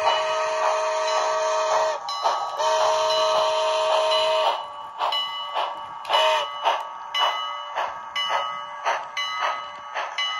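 DCC sound decoder of a Bachmann HO-scale Southern Pacific GS-4 steam locomotive model: the whistle sounds in two long blasts, the first ending about two seconds in and the second about four and a half seconds in, over a steady exhaust chuff. After the whistle the chuffing carries on alone, about two beats a second, getting quieter as the engine moves off.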